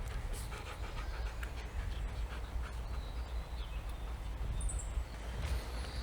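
A border collie panting, over a steady low rumble and scattered light clicks.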